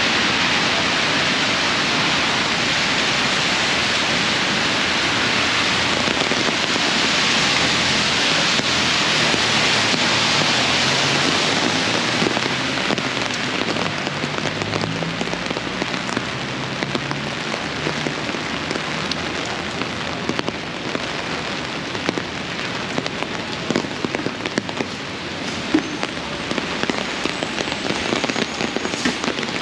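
Heavy rain falling steadily. About twelve seconds in, the hiss eases a little and separate sharp drop hits stand out.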